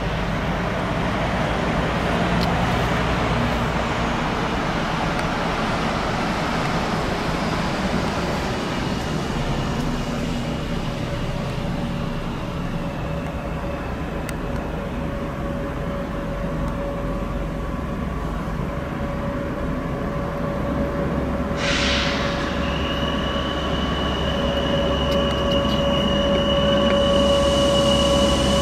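Locomotive-hauled passenger train running slowly into a station platform, with a steady rumble. In the second half a high, steady squeal grows louder as it approaches, and there is a short hiss about 22 seconds in.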